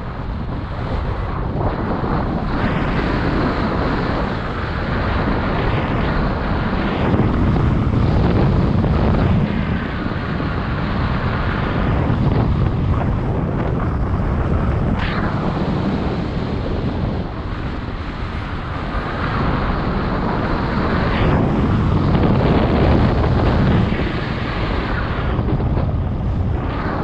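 Wind rushing over the microphone of a paraglider pilot's camera in flight: a loud, steady buffeting roar of airflow that swells and eases every few seconds.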